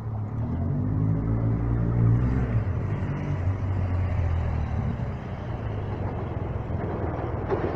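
A vehicle engine running with a low hum that drops in pitch about two and a half seconds in, over a steady low rumble.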